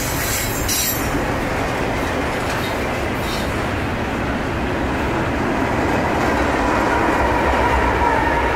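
Double-stack intermodal freight train's well cars rolling past, a steady rumble and rattle of wheels on rail. A thin steady squeal comes in past the middle and grows a little louder.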